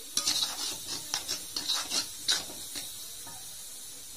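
Metal spoon scraping and clinking against a wok while stirring chillies, shallots and garlic frying in margarine: a string of scrapes and knocks over the first three seconds, over a steady faint sizzle.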